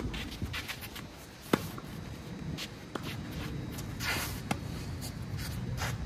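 Tennis rally on a green clay court: a few sharp pops of ball strikes and bounces, the loudest about a second and a half in, with tennis shoes scuffing on the gritty clay and a longer slide about four seconds in.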